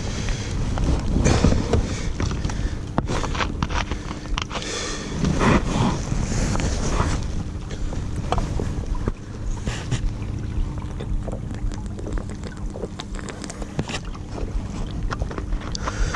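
Wind buffeting the microphone over the knocks, scrapes and water sounds of a plastic sit-on-top kayak being moved along a shallow river, with a faint steady hum behind them from about a third of the way in.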